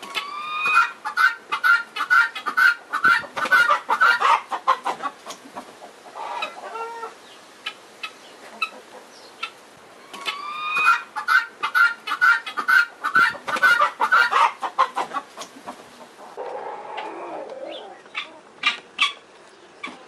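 Guinea fowl giving harsh, repeated alarm calls while squaring off with a peacock: two long runs of evenly spaced notes, each run opening with a rising cry, the second starting about ten seconds in.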